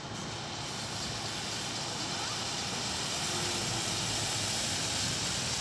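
Iveco Urbanway 12 city bus approaching along the street, its engine and tyre noise growing steadily louder.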